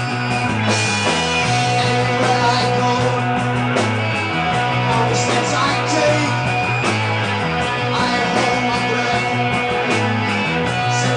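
Rock band playing live: electric guitars, bass guitar and drums, with bass notes changing every second or so under steady cymbal hits.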